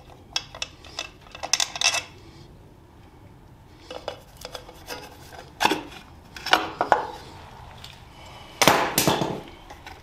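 Metal clinking and clattering as the sprocket cover of a 2000 Suzuki Katana 750 is worked loose and lifted off the engine case. It comes in several short bursts, the loudest near the end.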